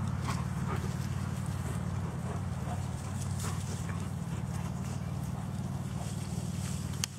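Rustling and light ticks of movement through tall grass as a person walks with dogs, over a steady low hum.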